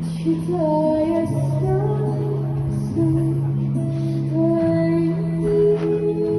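Slow music with a woman singing a melody over a held low drone.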